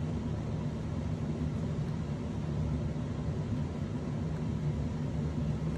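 Steady low hum with a faint hiss of background room noise and no distinct events. Any razor-blade cuts through the balsa are too quiet to stand out.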